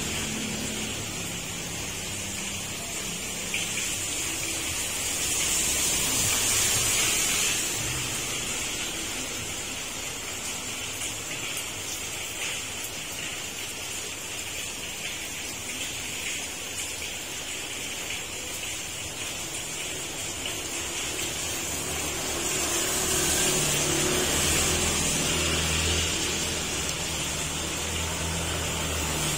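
Heavy rain pouring down in a steady hiss, swelling slightly at times, with a low rumble rising near the end.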